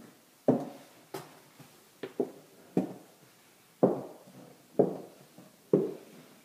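Footsteps on a bare, unfinished floor, about one step a second, each a sharp knock that echoes briefly in the empty drywalled rooms.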